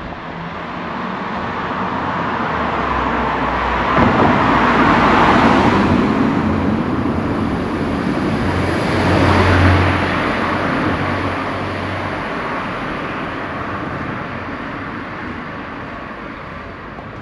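Road vehicles passing close by one after the other: the tyre and engine noise swells to a peak about five seconds in, again near ten seconds with a low engine hum, then fades away.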